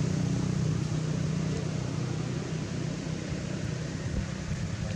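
Steady low mechanical hum that keeps going without a break, with no distinct knocks or animal calls standing out.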